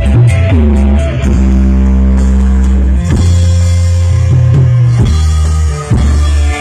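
Loud instrumental rock-style music with electric guitar, bass and drum kit, playing sustained chords.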